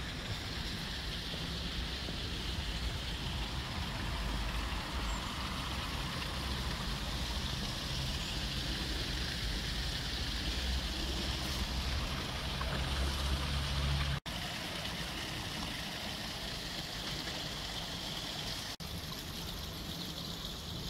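Steady rush of water running at a canal lock, with wind rumbling on the microphone until about two thirds of the way through, when the sound cuts out for an instant; a second short cutout follows a few seconds later.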